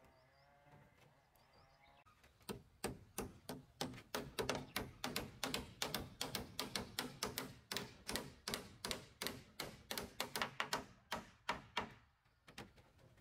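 Hammers driving nails into timber roof rafters: a quick, uneven run of sharp strikes, about four a second. It starts about two and a half seconds in and stops shortly before the end.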